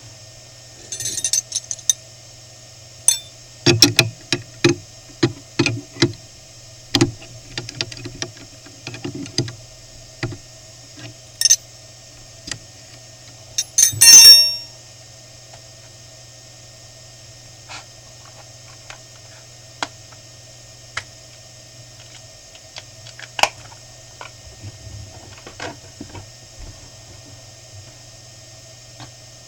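Desktop CNC PCB mill with a steady machine hum, broken by a run of irregular sharp metallic clicks and clinks in the first half, loudest about fourteen seconds in, then only a few scattered ticks.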